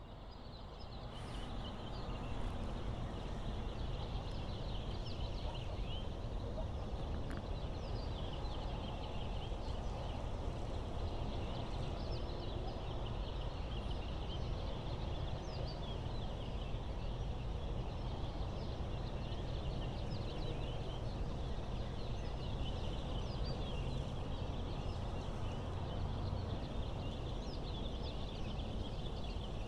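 A dense, unbroken chorus of many short, high chirping animal calls over a low steady rumble.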